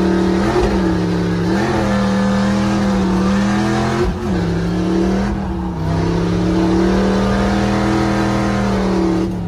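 Chevrolet C10 drift truck's engine held at high, nearly steady revs under load, heard from inside the cab. The revs dip briefly and recover around one and four seconds in, then fall away near the end.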